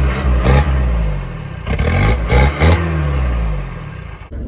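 Mitsubishi Shogun 4x4's engine, just started, being revved several times from the open driver's door, the pitch rising and falling with each blip while it blows out thick smoke. The sound cuts off abruptly near the end.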